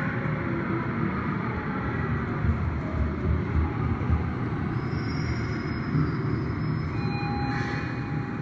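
Dance rehearsal music played over speakers, picked up mostly as a heavy, pulsing bass.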